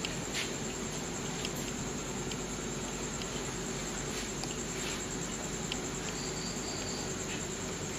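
Night insects, crickets among them: a steady high-pitched trill with scattered short chirps, over a faint low steady hum.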